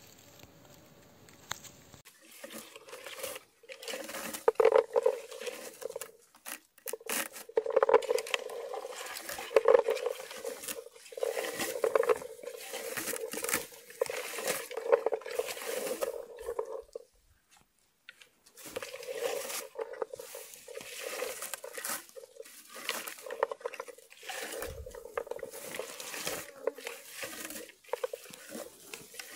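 Hand-held berry-picking comb raked again and again through bilberry bushes: a dense, irregular rustling and rattling of tines, stems, leaves and berries, with a short pause a little past halfway.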